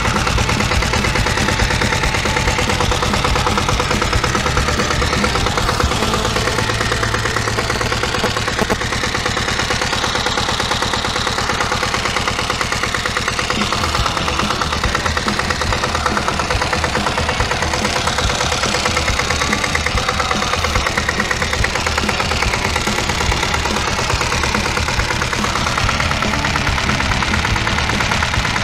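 Sommer diesel motorcycle's single-cylinder Hatz diesel engine idling with a steady, even diesel knock.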